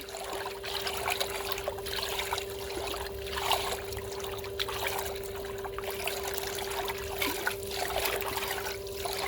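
Water trickling and lapping in a swimming pool, with the steady hum of the pool's filter pump running underneath.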